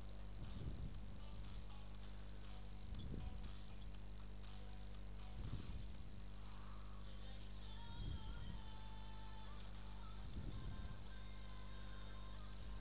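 Steady electrical hum and high-pitched whine of a computer recording setup's microphone line, with soft low puffs about every two and a half seconds.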